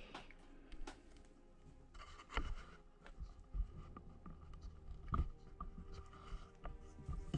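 Scattered light clicks, taps and scraping of fly-tying tools and materials being handled at the bench, with the sharpest taps about two and five seconds in.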